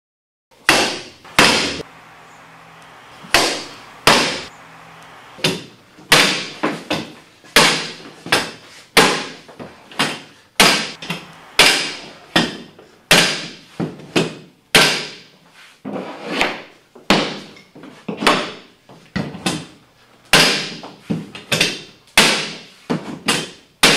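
Repeated mallet blows on the plunger of a Primatech H330 manual hardwood floor nailer, driving nails through the tongues of floorboards. Sharp knocks with a brief ring, about one or two a second, some struck in quick pairs.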